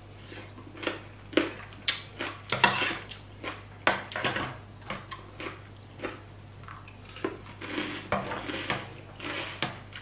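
Mukbang eating sounds: a metal fork and spoon clinking and scraping on a plate of papaya salad, with chewing, in irregular bursts over a steady low hum.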